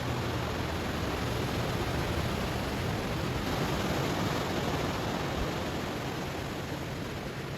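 Ocean surf washing over stones on the shore: a steady rush of waves that swells a little in the middle and eases slightly near the end.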